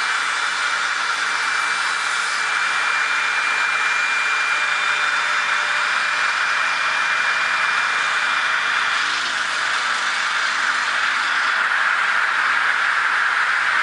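Routech Oikos CNC machining centre running: a steady whirring hiss of its motors as the saw head repositions, with a thin high whine that fades out about two-thirds of the way through.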